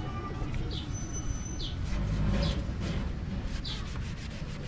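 A cloth rubbing and wiping a motorcycle's rear wheel and brake caliper, a rough scraping rustle. A bird chirps short high notes about once a second over it.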